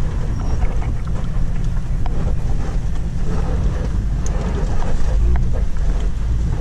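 Off-road vehicle engine running steadily while driving a dirt trail, a low rumble with wind buffeting the microphone.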